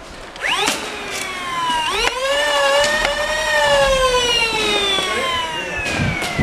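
A siren-like wailing tone that sweeps up in pitch twice, then slowly falls over several seconds. A few sharp clicks sound over it.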